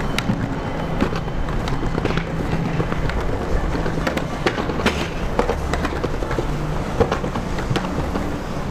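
Skateboard rolling along a city sidewalk, its wheels clacking irregularly over pavement joints and cracks, over a steady low hum of street traffic.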